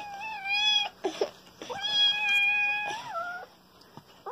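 Small kitten meowing: one call that ends about a second in, then a long drawn-out meow that drops in pitch at its end.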